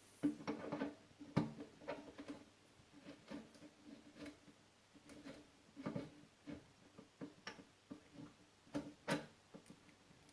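Irregular light metallic clicks and knocks of parts being handled and fitted by hand, about one to three a second, over a faint steady hum.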